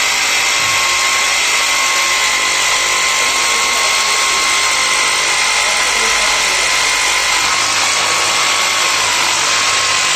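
Electric power tool running continuously at one steady speed, loud, with a high, even whine.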